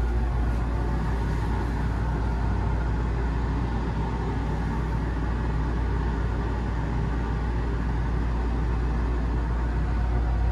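Steady low rumble and hum inside an enclosed Ferris wheel gondola as the wheel turns and carries it upward; even and unbroken, with no distinct knocks or tones.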